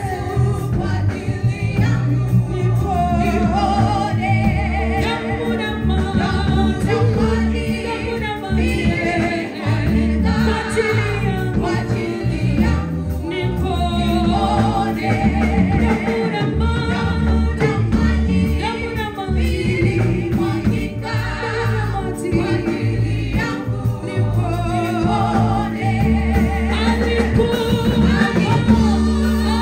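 A gospel vocal group of several women and a man singing together into microphones, with instrumental accompaniment carrying steady low notes underneath.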